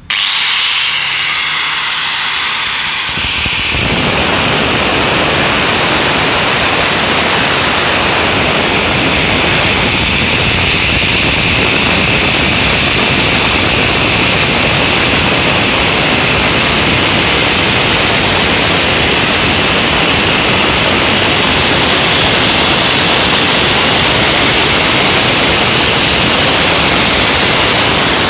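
Angle grinder spinning up, then grinding with an abrasive disc against the chipped edge of a stone piece for about 25 seconds with a loud, steady rasping whine. It is wearing away the chips to restore the edge.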